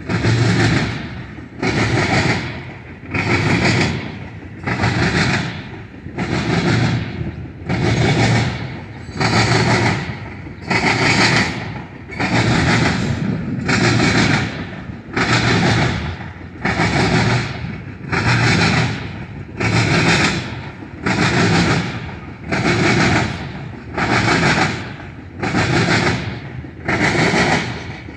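Tank cars of a freight oil train rolling past, their steel wheels clacking over the junction's rail joints and crossings in a steady rhythm. A loud burst of clatter comes about every one and a half seconds, as the trucks at each pair of coupled cars pass.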